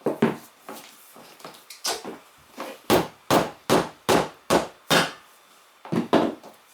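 Hand tools knocking against a motorcycle tyre and wheel rim during a manual tyre change. A run of about six sharp knocks, roughly two and a half a second, comes in the middle, with a few scattered knocks before and after.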